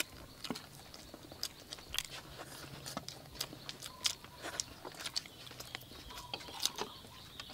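People chewing and biting into sauce-glazed fried chicken wings: a scattering of small crunches and wet mouth clicks, with no talking.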